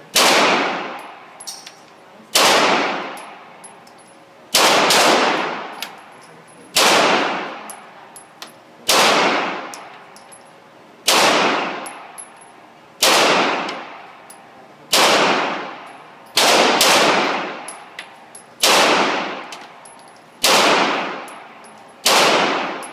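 Ruger SR9 9mm pistol fired in slow, steady succession: about a dozen shots, roughly one every two seconds, each ringing out with a long echoing tail, and twice two shots come close together.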